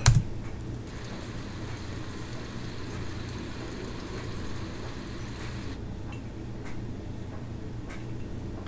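Quiet ambient soundtrack of an animated cartoon: a steady low hum under an even hiss. The hiss drops away about six seconds in, leaving the hum.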